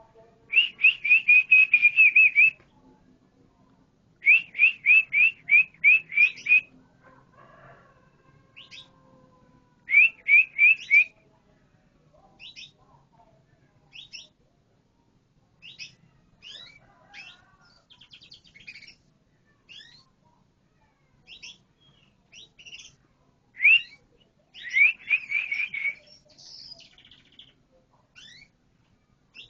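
Canary singing: bursts of rapid repeated trill notes, each burst one to two and a half seconds long, with short scattered rising chirps in between.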